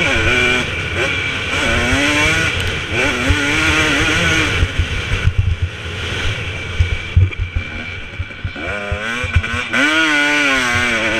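2017 KTM 250 SX two-stroke motocross engine revving hard, its pitch rising and falling with the throttle and gear changes, heard from the onboard camera. It is quieter in the middle stretch, where low thumps come through, then revs up again near the end.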